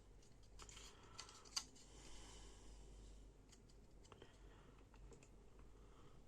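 Near silence with a scatter of faint small clicks and handling noises, one sharper click about one and a half seconds in. No horn or buzzer tone sounds.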